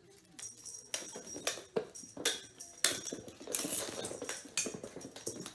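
A cat's paws and claws tapping and scrabbling on wooden flooring as it dashes and pounces at a feather wand toy, a quick run of sharp taps with a flurry of scuffling about three seconds in.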